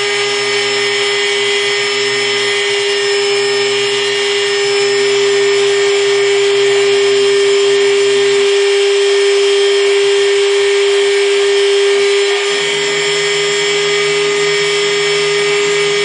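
CNC mill spindle running steadily with a strong, even whine while a 0.8 mm bit engraves a copper PCB. A lower hum under it stops a little past halfway and comes back about four seconds later.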